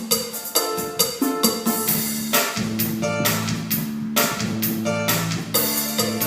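Korg Pa600 arranger keyboard playing a cha-cha-cha style. Drums and percussion keep a steady beat over a bass line and guitar-like chords.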